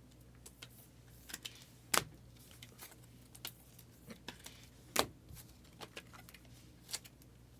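Scattered light clicks and taps of trading cards and their plastic holders being handled, with two sharper clicks about two and five seconds in.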